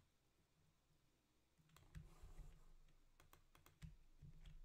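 Faint tapping of computer keyboard keys as a password is typed: about ten short clicks, starting a little under two seconds in.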